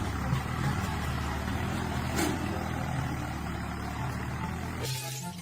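A motor vehicle or engine running steadily, with a couple of short clicks. Near the end it cuts suddenly to a different, regularly pulsing mechanical sound.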